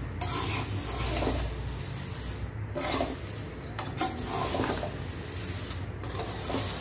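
Steel spoons stirring dry roasted poha chivda in a metal kadhai: steady scraping and rustling of the crisp mix, with a few sharper clinks of spoon against the pan.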